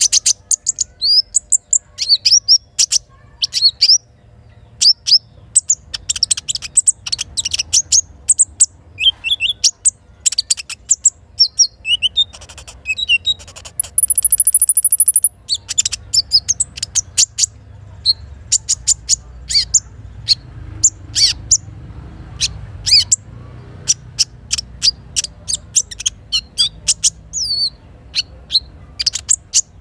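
A sunbird (sogok ontong) calling in rapid, very short, high chirps, with a loud high buzzing trill about halfway through.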